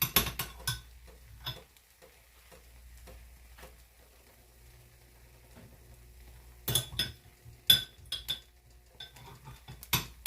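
A metal utensil clinking and tapping against a dish and the frying pan as chopped peppers are spooned onto an omelet. A few sharp clinks come at the start, then a tap or two, then another cluster of clinks about two-thirds of the way through.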